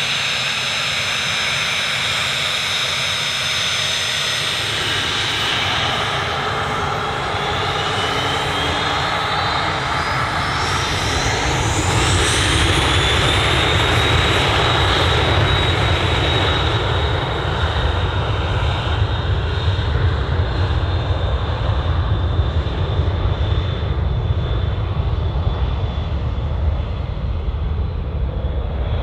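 The twin rear-mounted turbofan engines of a Learjet business jet spool up for take-off. A whine rises in pitch about six to twelve seconds in, then holds as a steady high tone over a growing low rumble of jet noise as the jet rolls down the runway.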